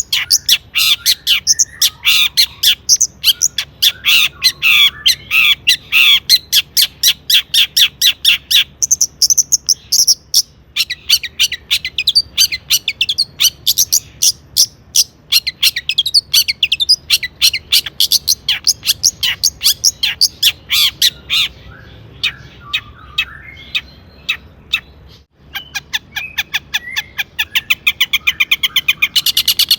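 Long-tailed shrike singing a long, rapid run of short, high chattering notes, with a brief break near the end.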